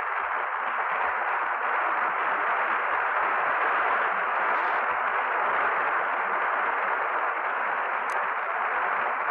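Steady static-like hiss that does not change, with a faint high tick about eight seconds in.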